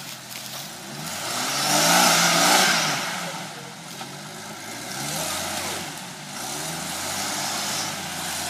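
Off-road 4x4's engine revving in repeated surges as it climbs out of a gully, the pitch rising and falling, loudest about two seconds in with a rush of noise.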